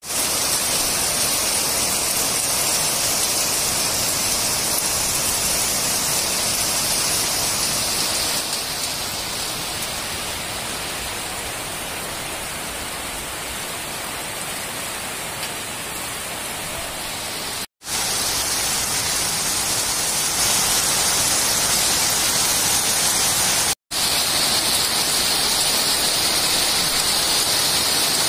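Heavy rain pouring down in a steady, dense hiss, easing a little in the middle and heavier again after a brief dropout, with another short dropout a few seconds later where the footage is cut.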